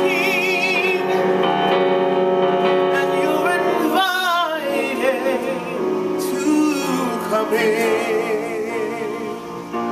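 Gospel worship music: a woman singing long, held notes with a wide vibrato, without clear words, over sustained instrumental chords.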